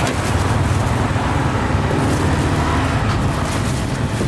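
Steady low rumble of road traffic with a wide, even noise over it and no distinct events.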